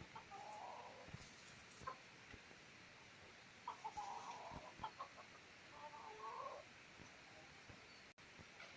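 Chicken clucking, three short faint bouts of wavering calls: about a second in, around the middle, and again a couple of seconds later.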